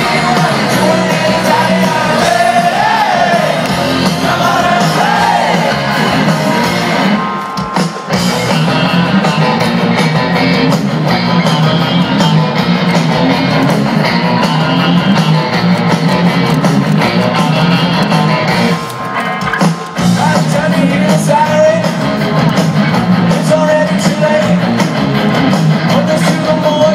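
Punk rock band playing live through a festival PA, with distorted electric guitars and a lead singer, heard from within the crowd. The sound dips briefly twice, about eight and twenty seconds in.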